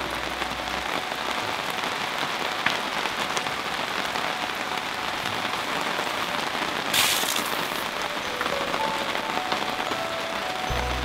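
Steady rain falling and pattering on surfaces, with a brief louder hiss about seven seconds in.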